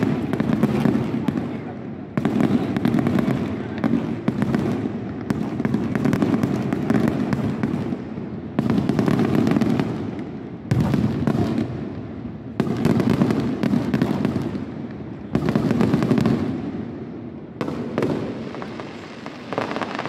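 An aerial fireworks display: shells bursting in a rapid series, a loud boom about every two seconds, each trailing off in a rumble, with crackling between them.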